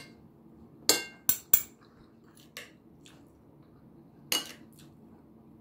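Metal spoon clinking against a plate: three sharp clinks about a second in, the first with a short ring, a lighter one later, and another just past four seconds.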